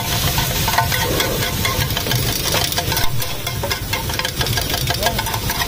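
Two steel spatulas clattering and scraping on a large flat griddle (tawa), chopping and turning an egg and onion mixture in quick, uneven taps, over a steady low rumble.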